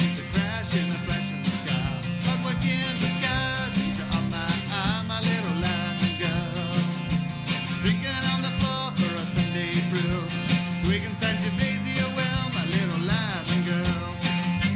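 Band music: a country-flavoured rock song with acoustic guitar over bass and drums, a steady beat throughout and a melody line that bends in pitch.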